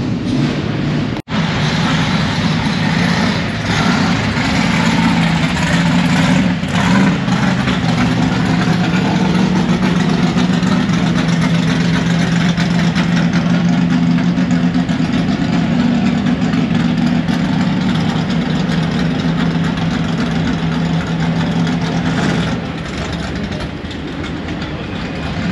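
A car engine running steadily close by with a deep, even note that eases off near the end, with a brief audio dropout about a second in.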